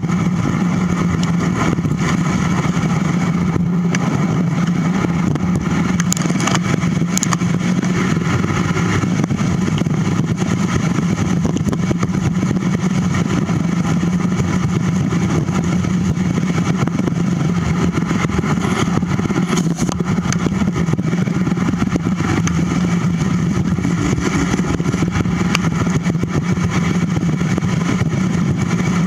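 Steady rumble of bicycle tyres rolling over a gravel trail, mixed with wind rushing over a handlebar-mounted camera, with a constant low hum and an even level throughout.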